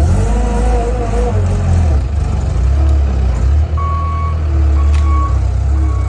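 Skid steer loader's diesel engine running under work, with its back-up alarm beeping at a steady pace from about four seconds in as the loader reverses.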